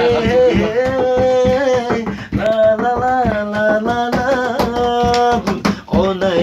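A man singing a melody on long held notes, with quick hand taps drummed on a wooden plank bed as accompaniment.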